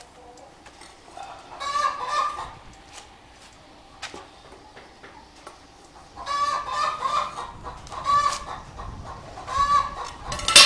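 Backyard chickens squawking and clucking loudly: one burst of calls about two seconds in, then a run of repeated agitated calls from about six seconds on.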